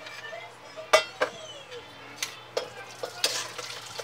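A spatula scraping and knocking against a frying pan as food is stirred and sizzles lightly. There are several sharp clinks, the loudest about a second in.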